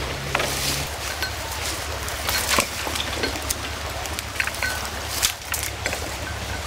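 An engine running steadily with a low hum, with scattered clicks and knocks as a firefighting suction hose and its metal coupling are handled.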